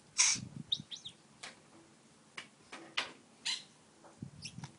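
Pet budgerigar chattering quietly: a short harsh rasp just after the start, a couple of quick high chirps just under a second in, and scattered sharp clicks.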